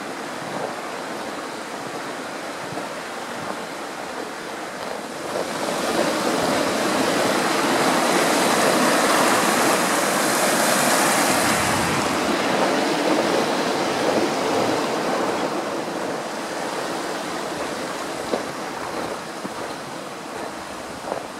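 Mountain stream running among snow-covered logs and rocks, a steady rushing of water that swells about five seconds in, stays loudest for several seconds, then gradually fades.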